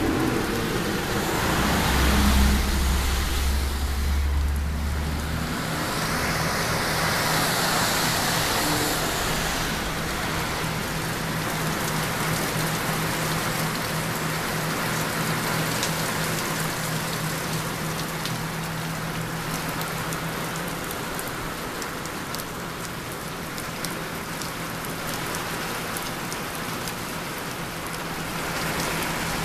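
Steady hard rain pouring onto pavement and puddles. A vehicle passes on the wet road about two seconds in, and a low steady engine hum runs through the middle.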